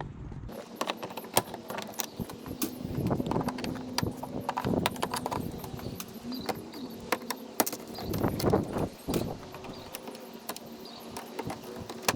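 Plastic push-pin retainers being pried out of a plastic engine-bay cover with a retainer tool: a run of small irregular clicks, snaps and tool clinks.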